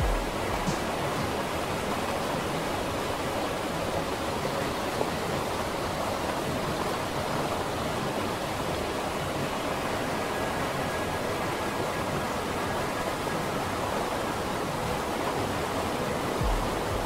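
Steady, even hiss of an ambience noise bed, with a soft low thump near the start and another near the end.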